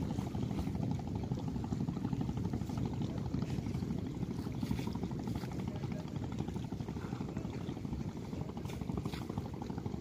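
Steady low rushing noise of wind buffeting the microphone, mixed with choppy river water lapping at the bank.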